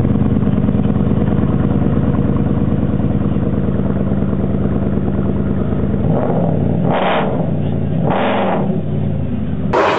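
Supercar engine idling steadily, then revved twice in short blips near the end.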